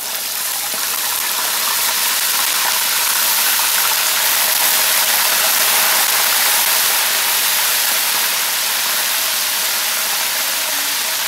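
Whole mojarra fish sizzling loudly in a very hot pan of lard, with no flour coating. The sizzle swells over the first couple of seconds and then holds steady.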